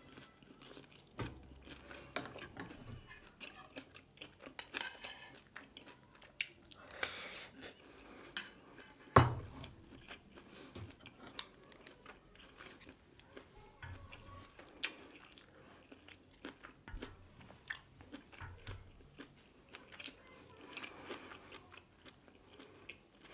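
A person chewing and biting grilled pork sekuwa with rice, many small irregular mouth clicks, and one sharp knock about nine seconds in.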